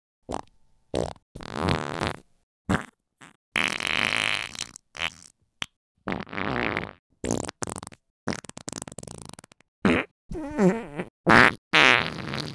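About a dozen farts in quick succession, separated by short gaps. Some are brief pops; others are longer, sputtering ones lasting about a second.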